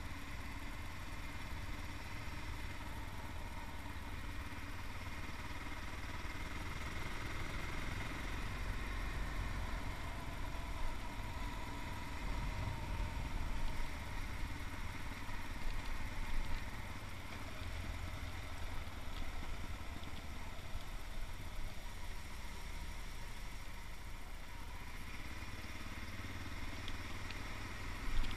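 Yamaha MT-03's 660cc single-cylinder engine running steadily, swelling a little in level around the middle.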